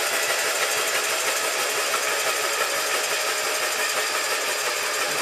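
Kohler Magnum M18 twin-cylinder engine spun over by its electric starter with the spark plugs out, a steady, rapid mechanical rhythm with no firing, on a weak battery. It is being cranked to build oil pressure before the first start.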